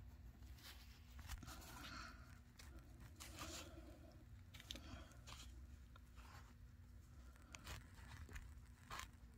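Near silence with faint, scattered rustles and short clicks over a low room hum.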